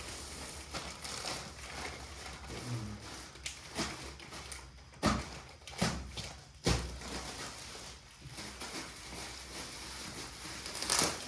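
Items being handled and rustled, with three sharp knocks about five, six and seven seconds in and a louder rustle near the end.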